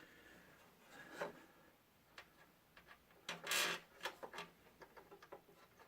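Faint rubbing and scraping with scattered light clicks as a cooling radiator is worked into a computer case, with one louder scrape about three and a half seconds in.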